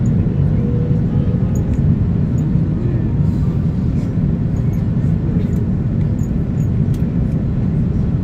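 Steady low roar inside the cabin of an Airbus A330-300 on final approach with its flaps extended: airflow over the fuselage and the Rolls-Royce Trent 772B engines running.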